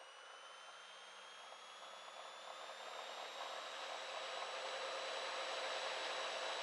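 Cessna Skylane's single piston engine and propeller at takeoff power during the takeoff roll: a steady noisy drone with a high whine that slowly rises in pitch as it grows louder.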